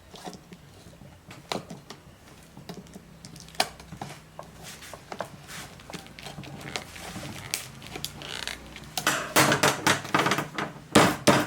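Small metal clinks and knocks as a lathe chuck and its parts are handled, with a burst of louder, denser clattering near the end.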